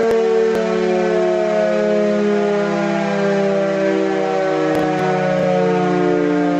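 Fictional Emergency Alert System alarm tone: a loud, held chord of several steady tones, siren-like, that slowly slides downward in pitch.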